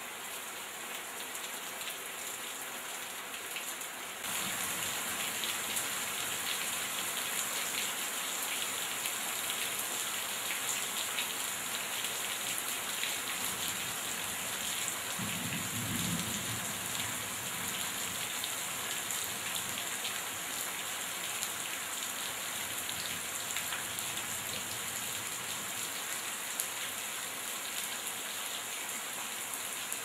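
Heavy rain falling steadily, water streaming off the veranda roof and pattering on the wet paving and grass; it gets louder about four seconds in. A brief low rumble of thunder comes about halfway through.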